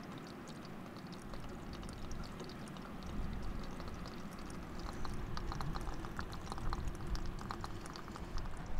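Faint, irregular clicking and tapping of live crabs and periwinkle shells moving against each other in a plastic tub, busier after about five seconds, over a low steady wash.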